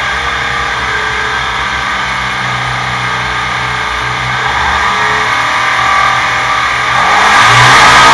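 Irving Vincent 1300cc V-twin engine running steadily on an engine dyno, growing louder about seven seconds in as the throttle opens for the pull.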